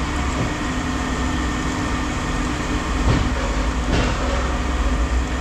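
Steady low rumble of running machinery, with two short knocks about three and four seconds in.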